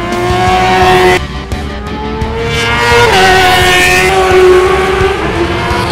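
1000 cc superbike engine revving hard as it passes, its pitch climbing and then stepping down at upshifts, about a second in and again about three seconds in.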